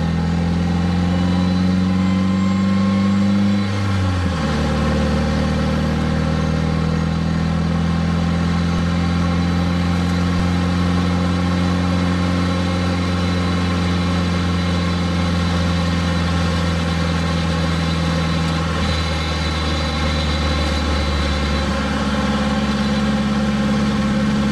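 SR20DET turbocharged four-cylinder engine of a Nissan D21 pickup running steadily while the truck is driven; its note drops about four seconds in and rises slightly near the end.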